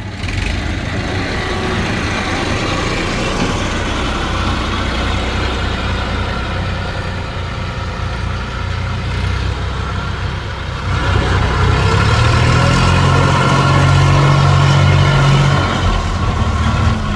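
Heavy diesel engine of a tractor or backhoe running steadily. About eleven seconds in it revs up and gets louder, holds for about four seconds, then drops back.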